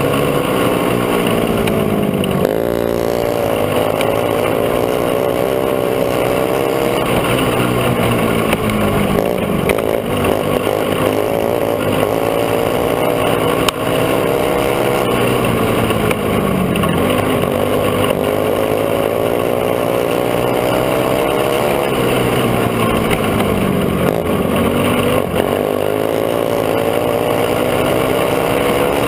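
Racing go-kart engine heard from on board, running hard, its pitch climbing under throttle and dropping about five times as the driver lifts for the corners.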